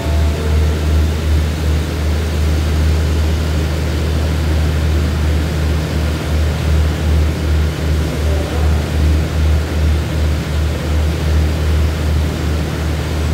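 Diesel engines of a standing passenger train idling: a steady low drone with a regular throb.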